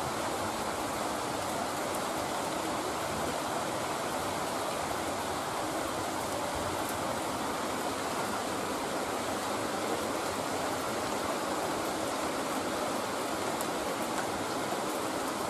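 Heavy rain falling in a steady, even hiss of a downpour.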